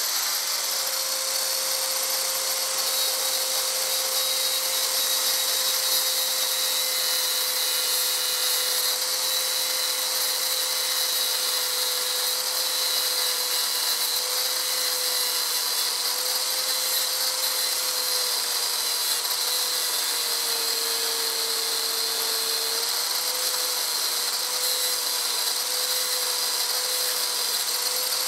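Angle grinder running continuously, its disc grinding the heads off the steel rivets of a motorcycle drive-chain link: a steady motor whine over a hissing grind. The whine dips lower for a couple of seconds about twenty seconds in, then comes back up.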